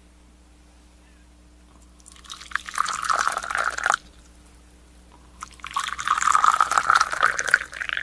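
Liquid being poured, in two pours of about two seconds each with a short gap between them.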